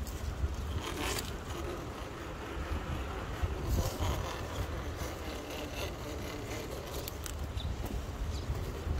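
Traxxas TRX-4 Defender scale RC crawler driving over rocks and dirt: its electric motor and gears whir, and a few sharp clicks and scrapes come from the tyres and body on rock. Wind rumbles on the microphone underneath.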